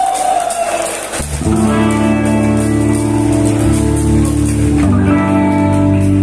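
Live band with electric guitars playing loud, held chords through amplifiers; the band comes in about a second in after a held high note, and the chord changes near the end.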